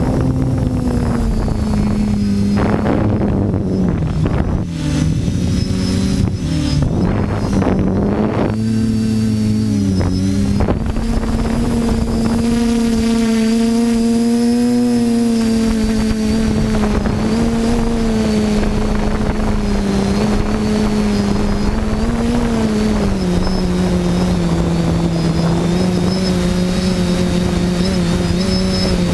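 TBS Discovery quadcopter's electric motors and propellers whining steadily in flight. The pitch dips and rises repeatedly in the first ten seconds or so, then holds steadier, dropping slightly about two-thirds through.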